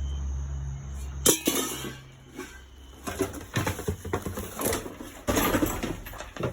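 Household items being handled and knocked together while rummaging through a dumpster: a low steady hum stops with a sharp knock about a second in, and a run of irregular clattering and rustling follows.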